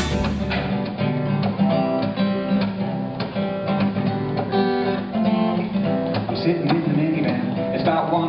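Acoustic guitar being strummed and picked, playing the introduction to a song. A short tail of a different recorded music track is heard in the first moment.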